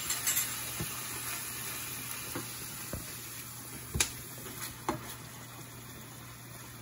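Goat liver sauce sizzling in hot oil in a pot, the sizzle slowly dying down. A few sharp knocks of a utensil against the pot are heard as it is stirred, the loudest about four seconds in.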